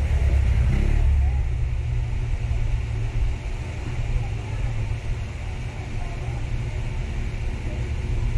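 Steady low rumble, loudest in the first second or so.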